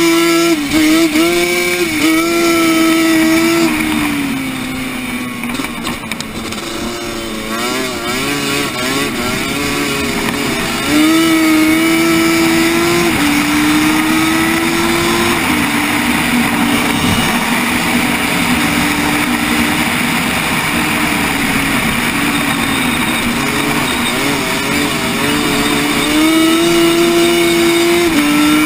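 Racing quad bike's engine heard from a camera mounted on the quad, revving hard with its pitch climbing and stepping down at each gear change. About four seconds in it eases off and wavers for several seconds, then goes back to full throttle about eleven seconds in.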